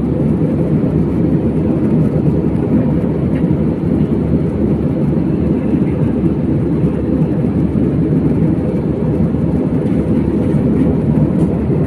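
Airplane noise: a steady, loud low rumble that holds level without rising or falling.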